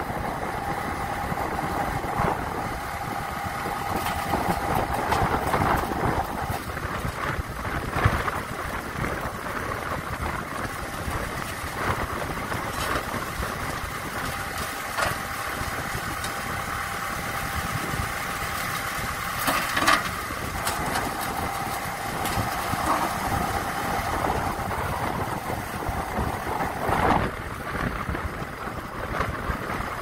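A self-loading concrete mixer's engine running steadily while its drum discharges concrete down the chute. A steady whine comes and goes over it, with a few short knocks.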